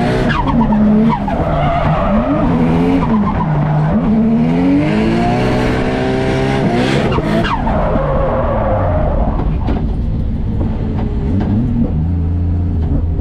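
Drift car's engine revving up and down hard while the tyres squeal and skid through a drift, heard from inside the cabin. About seven and a half seconds in, the revs fall sharply and the tyre noise fades, and the engine settles to a lower, steadier note.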